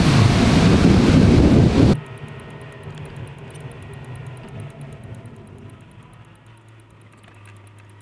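Street traffic at an intersection, heavily buffeted by wind on the microphone. About two seconds in it cuts off abruptly to a much quieter hum from inside a car's cabin, recorded on a dashcam and sped up, with a faint quick ticking over it.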